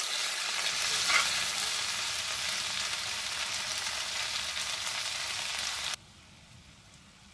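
Chopped okra, onion and green chillies sizzling as they fry in oil in a pan, stirred with a metal spatula at the start. The sizzle cuts off suddenly about six seconds in, leaving only a faint background hiss.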